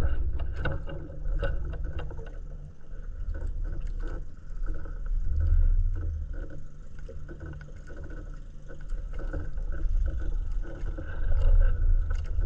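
Water lapping and sloshing against the hull of a small wooden outrigger canoe adrift at sea: a low rumble that rises and falls, with scattered small knocks.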